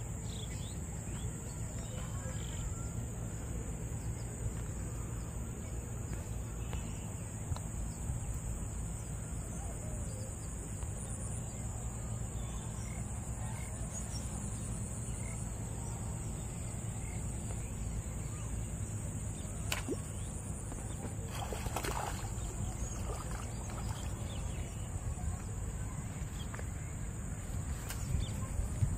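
Outdoor rural ambience: a steady high-pitched drone over a low rumble, with a few faint bird calls and some brief rustling about two-thirds of the way in.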